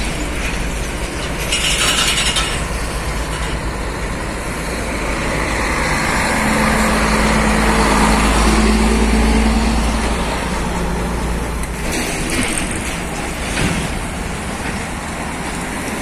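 Heavy Scania diesel truck hauling an excavator on a lowbed trailer, approaching and passing close by. Its engine and tyre noise rise to a peak about eight seconds in, then fall away in pitch and loudness. A short hiss comes about two seconds in.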